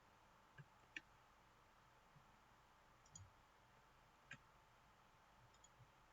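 Near silence with about six faint, scattered clicks from a computer mouse, the sharpest about a second in and about four seconds in.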